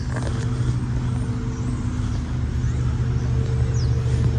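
Engine running steadily at constant speed: a low drone with a steady pitched hum over it.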